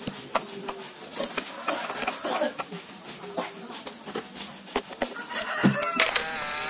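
Light clicks and knocks of the blue plastic blower housing and white plastic impeller being handled and fitted onto the motor shaft. Near the end an animal calls with a long wavering cry.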